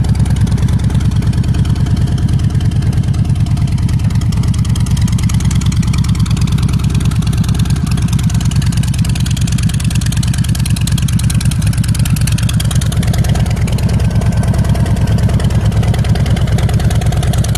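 An engine idling steadily with an even, rapid low pulse, the kind of sound a motorcycle engine makes.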